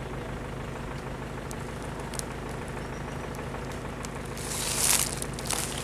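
A vehicle engine idling steadily, with a loud burst of hissing noise near the end.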